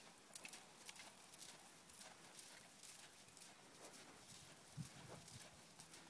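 Faint, regular hoofbeats of a three-year-old American Quarter Horse mare in arena dirt, about two a second, with a couple of louder low thumps near the end.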